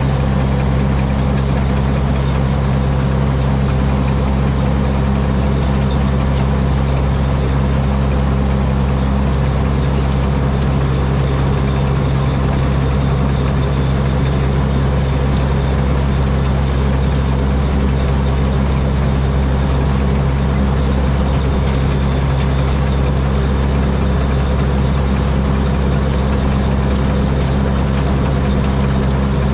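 Rice combine harvester running steadily on its 225 hp turbocharged Mitsubishi diesel engine, a loud, even engine note with no change in speed.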